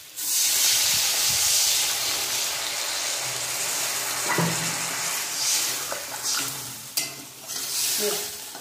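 Water poured into a hot kadai of oil-fried, spiced potatoes and stems hits the hot pan and sets off a loud hiss and sizzle that starts suddenly and slowly dies down as the curry's gravy begins. Near the end a metal spatula stirs and knocks against the pan a few times.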